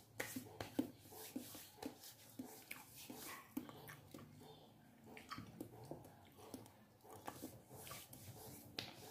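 A man chewing and swallowing a mouthful of food close to the microphone: quiet, irregular small smacks and clicks.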